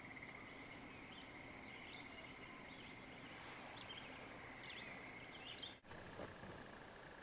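Very faint outdoor ambience: scattered distant bird chirps over a steady high insect drone, briefly cutting out near the end.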